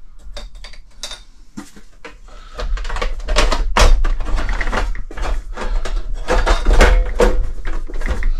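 Knocks, clicks and rattles of a Honeywell HZ510 space heater's red outer casing being handled and fitted back down over the heater body. Sparse at first, then busier and louder from about two and a half seconds in.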